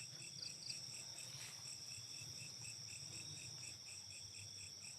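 Crickets and other night insects chirping: a steady high trill with a fainter pulsing chirp about three times a second.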